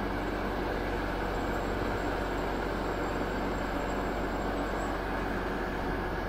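DB class 218 diesel-hydraulic locomotive's engine running steadily, with a faint high whine from about one to five seconds in.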